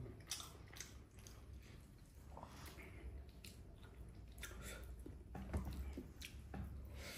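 Faint eating sounds: chewing, with soft squishing and small clicks as fingers mix rice and curry on a plate.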